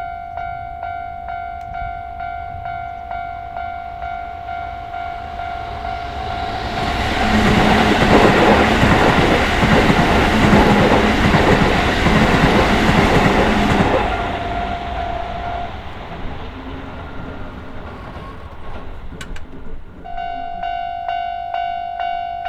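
Japanese level-crossing warning bell dinging about twice a second while a Keisei Main Line train passes over the crossing: the rush and rumble of the train on the rails swells about six seconds in and fades after about fourteen seconds. The bell stops shortly after the train has gone and starts dinging again near the end.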